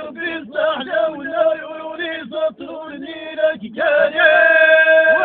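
A man's voice chanting Amazigh verse in a sung style, alone. Short rising and falling phrases give way, near the end, to one long held note.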